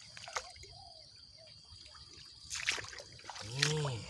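Water splashing and dripping as a small fish hooked on a staked bamboo line is pulled from the canal shallows, with two louder splashes in the second half. Near the end comes a short voiced grunt from the man, rising then falling in pitch, the loudest sound here, over a steady high insect whine.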